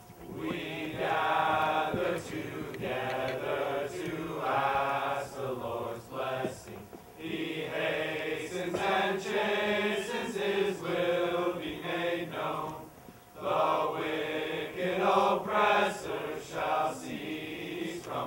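Male choir singing together in long, held phrases, with a short break about thirteen seconds in.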